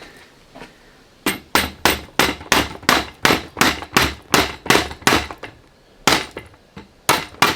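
Hammer blows at an even pace of about three a second: a run of about a dozen, a lone blow after a short pause, then another run starting near the end.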